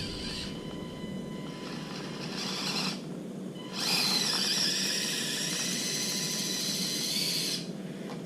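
Axial SCX24 micro crawler's small electric motor and gears whining under throttle as it climbs: a short burst about two seconds in, then a louder, steady run from about four seconds until shortly before the end.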